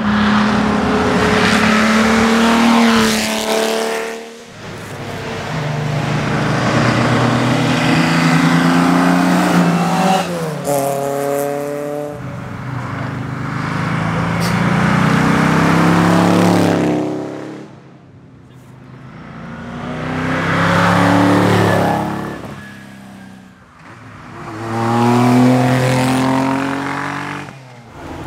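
Hill-climb race cars accelerating past one after another, about five in all. Each engine revs up through the gears, swelling loud and then fading as it goes by.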